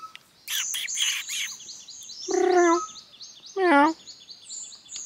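Ring-tailed lemur giving two cat-like meow calls, the first about two seconds in and the second, bending in pitch, about a second later. Short high chirps repeat steadily underneath, with some scratchy noise near the start.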